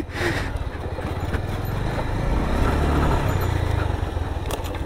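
Motorcycle engine running at low revs with a fast, even pulse, its note swelling for a second or so in the middle before settling back.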